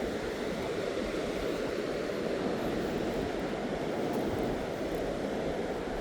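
Steady rushing noise of wind and surf on a beach.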